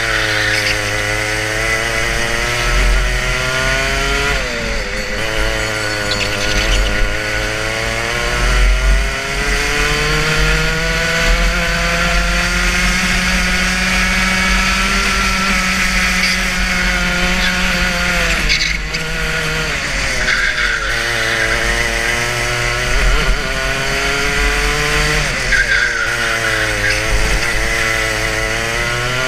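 Racing kart's two-stroke engine heard from on board at racing speed. The revs climb along the straights and drop sharply under braking for the corners, with one long climb about halfway through before a sudden drop.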